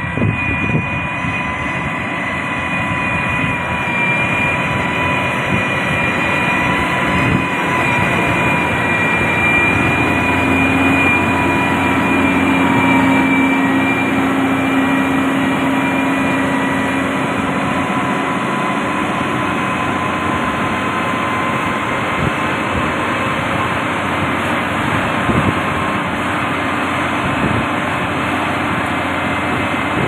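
Heavy road-construction machinery running: continuous diesel engine noise with a steady high whine, and a lower hum that grows stronger for several seconds midway.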